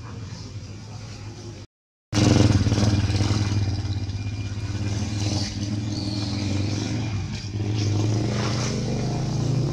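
A motor engine running steadily with a low hum, starting loud about two seconds in after a brief dropout.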